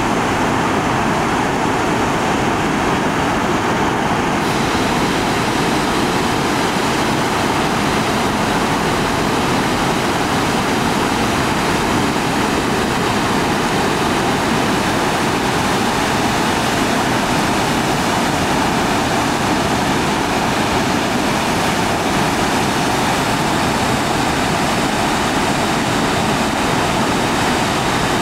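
Waterfall plunging through a narrow rock gorge into a churning pool: a loud, steady rush of water.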